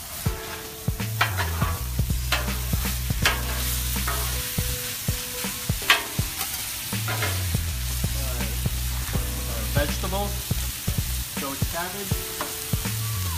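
Meat sizzling on a Blackstone flat-top griddle, with metal spatulas scraping and clacking on the steel cooktop as pork strips and Spam are tossed and piled.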